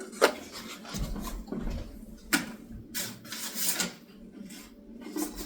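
Sandpaper being changed: scattered clicks and knocks with soft rustling as the sheet is handled and swapped.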